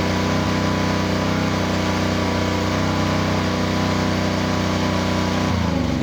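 Pressure washer's small engine running steadily, then shut off about five and a half seconds in, its pitch dropping as it winds down.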